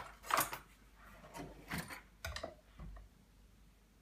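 A few scattered light knocks and clicks of a kitchen knife and a tin can being handled on a counter, loudest about half a second in and just before two seconds in, as the knife is set up to open the can.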